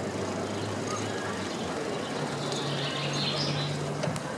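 Steady wind and rolling noise from riding a bicycle, with a low hum that steps up in pitch about halfway through. Faint high chirps come in around three seconds in.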